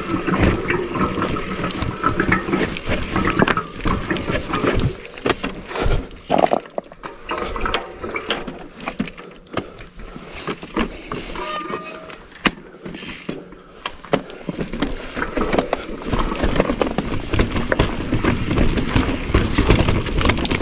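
Mountain bike clattering over rocks on a bumpy, technical descent: a dense, uneven run of knocks and rattles from the tyres, chain and frame hitting the rough ground.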